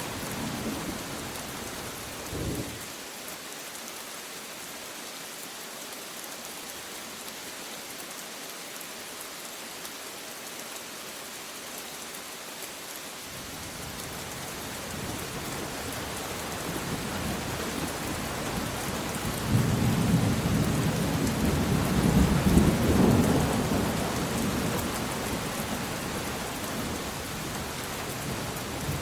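Steady rain falling, with a roll of thunder that builds about halfway through, rumbles loudest a few seconds later, and slowly dies away near the end.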